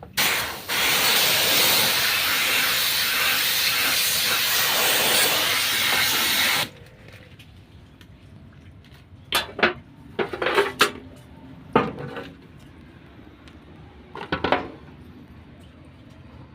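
A high-pressure water jet sprays hard and steadily for about six and a half seconds, as in washing down an air-conditioner unit, then cuts off abruptly. A few short clatters and knocks follow over the next several seconds.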